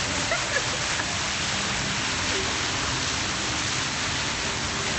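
Fountain jet splashing down into a pool: a steady, even rush of falling water.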